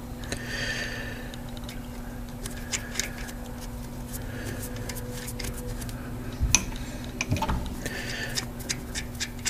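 Hex nut being screwed by hand along a freshly cut 3/8-16 thread to test the fit, giving light metallic clicks and scrapes, sharpest a little past halfway. A steady low hum runs underneath.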